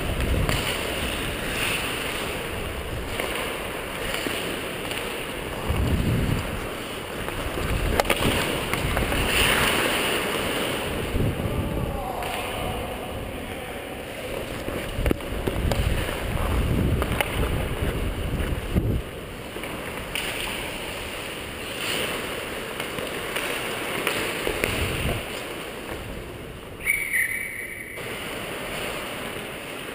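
Wind rushing over the microphone of a camera worn by a skating ice hockey player, with low buffeting that comes and goes in surges as the skater speeds up.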